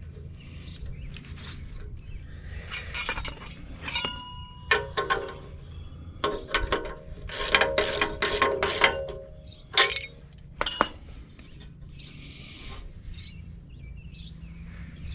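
Stainless steel exhaust bolts, nuts and an open-end wrench clinking against the pipe-to-muffler flange as the nuts are started by hand. It is a run of sharp metallic clinks with short ringing, thickest about halfway through.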